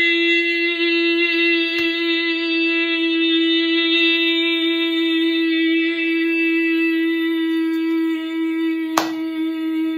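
A woman's voice holding one long sung note at a steady pitch, with a faint click about two seconds in and another near the end.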